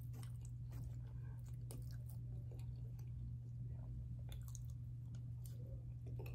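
Close-up chewing of soft baked penne pasta, with scattered small mouth clicks and wet sounds, over a steady low hum.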